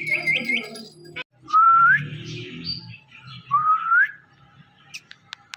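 A few quick rising chirps, then two clear whistles a couple of seconds apart, each sliding upward over about half a second.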